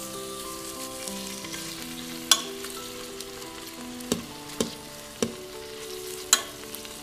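Beef cubes sizzling in hot olive oil in an electric pressure cooker's inner pot on its sear/sauté setting. About five sharp clicks of metal tongs against the pot as the pieces are turned.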